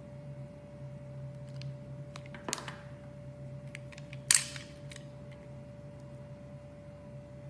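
Knife cutting into a bar of soap: light ticks and scrapes, a crisp crack about two and a half seconds in, and a louder short crunch a little past the middle, over a steady low hum.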